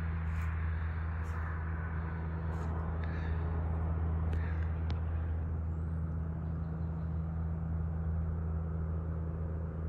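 Steady low mechanical drone, like a distant engine running, over outdoor ambience; a few faint high chirps in the first few seconds.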